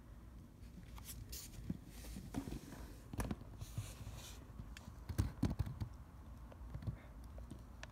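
Scattered light clicks, taps and knocks of small handling noises, loudest in a short cluster of knocks a little past halfway, with a brief soft rustle just before the middle.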